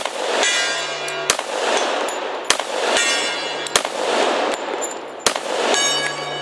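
FNP-45 Tactical .45 ACP pistol fired five times at a steady pace, about one shot every second and a half. Several shots are followed by the long metallic ring of a struck steel gong.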